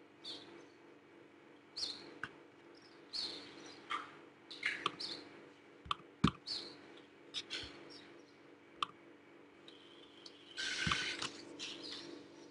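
Computer mouse clicking, about a dozen scattered sharp clicks with short rustling noises between them, over a quiet steady hum.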